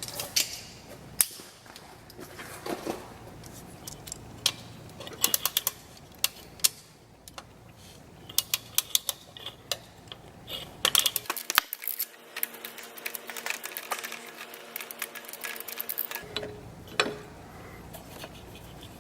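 Ratchet socket wrench clicking in short quick runs, with scattered taps and clinks of metal tools, as a motorcycle horn's mounting bolt is worked loose.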